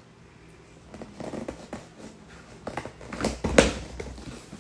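Packing tape being cut and pulled off a cardboard shipping box, with the cardboard handled: a few short scrapes about a second in, then louder tearing and crinkling around three seconds in.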